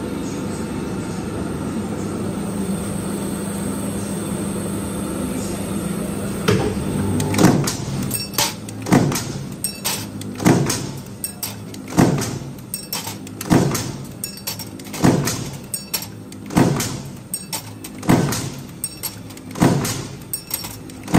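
Stamping press working a sheet-metal bending die. It hums steadily at first, then from about six seconds in it strikes about once every one and a half seconds, each stroke a sharp hit with lighter clicks between, as parts are bent.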